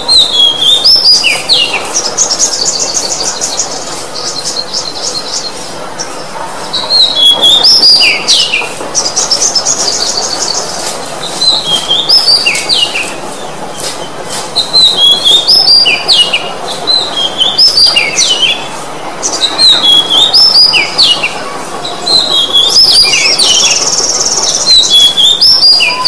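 Oriental magpie-robin (kacer) singing: loud phrases of sliding whistled notes, repeated every second or two. Three fast buzzy trills come in, near the start, about a third of the way in and near the end.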